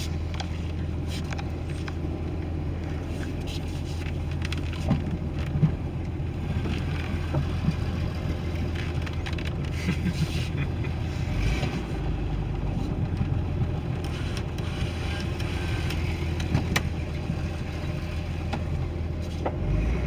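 2001 Jeep Cherokee engine idling, heard from inside the cab, a steady low hum with scattered light taps and clicks. About eleven seconds in, the hum drops lower. This is the engine suspected of a rod knock, whose owner, after tightening loose flex plate bolts, heard no knock at start-up and thinks it might be better.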